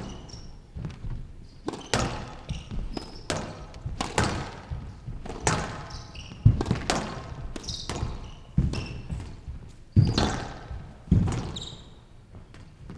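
Squash rally on a glass court: racket strikes and the ball hitting the walls, roughly one a second, echoing in a large hall. Between the shots come short high squeaks of shoes on the court floor.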